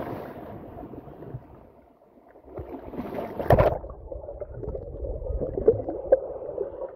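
River water sloshing and splashing around people bathing, with one louder splash about halfway through.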